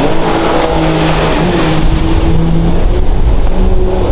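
Jet ski engine running hard at speed, a steady engine note that rises slightly in pitch near the end.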